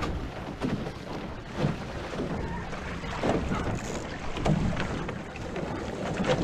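Water rushing and splashing along the hulls of a Viper F16 catamaran under sail, with irregular slaps of chop against the hulls about once a second and wind buffeting the microphone.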